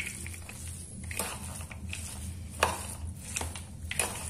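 Steel spoon stirring and pressing a thick mash of grated potato, gram flour and fried peanuts in a plastic bowl: irregular scrapes and clicks of the spoon against the bowl, a few sharper ones.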